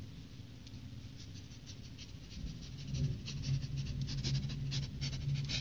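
A man imitating a dog sniffing around: quick repeated sniffs close to the microphone, with a low steady hum joining in about halfway through.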